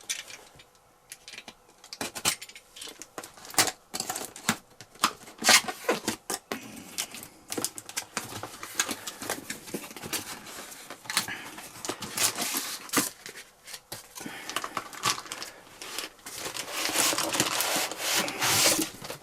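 A cardboard tool box being opened and unpacked by hand: cardboard rubbing and scraping, with sharp clicks and knocks as flaps and inserts are handled. A denser spell of crinkling packaging comes near the end.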